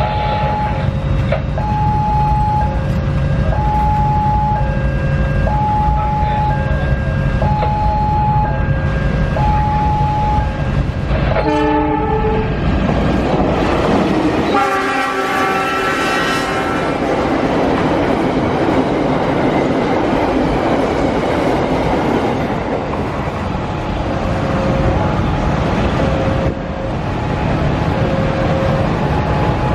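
Level-crossing warning bell sounding its alternating two-tone chime over the rumble of an approaching diesel-hauled freight train. About 12 s in the locomotive gives a short horn blast, then a long one about 14 to 17 s in, and the fertilizer wagons rumble and clatter past. The crossing bell is heard again near the end.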